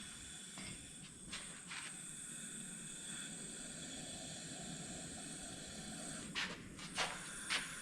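Steady hiss of compressed air from an air-driven blasting or coating gun. Short, louder bursts come twice early on and three times near the end.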